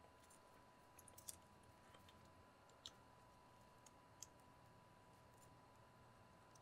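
Near silence with a handful of faint, scattered clicks as wire leads and connectors are handled.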